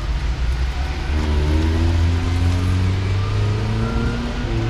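Car engine revving as the car accelerates around a motorkhana course, its note climbing in pitch from about a second in and climbing again near the end.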